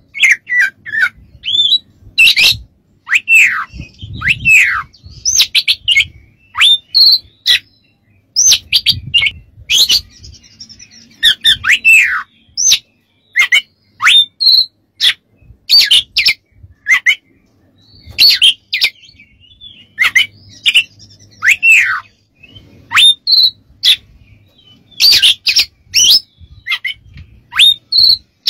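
Oriental magpie-robin (kacer) singing loudly in quick phrases of sharp chips and downward-slurred whistles, with short pauses between phrases.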